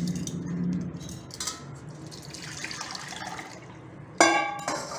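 A cooled herbal decoction being poured through a strainer into a cup, with a soft steady trickle of liquid. Near the end come two sharp, ringing clinks of kitchenware.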